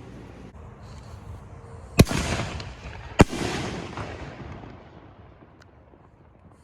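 5-inch canister firework shell: two sharp bangs about a second apart, each followed by an echoing rumble that fades away over a few seconds.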